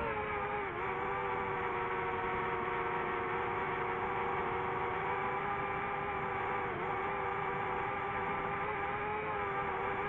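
DJI FPV quadcopter's motors and propellers whining at a steady pitch in cruising flight, with a small dip in pitch about seven seconds in.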